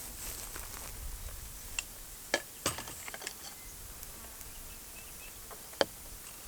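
Insects buzzing in the bush ambience, broken by a few sharp, irregular clicks, the loudest near the end.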